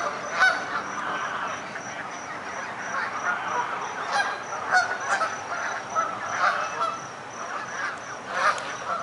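A flock of Canada geese honking, a continuous jumble of overlapping calls with louder single honks every second or two.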